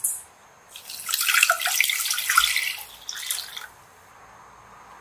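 Water poured into a saucepan onto brown sugar: a splashing pour that begins about a second in and stops a little under four seconds in.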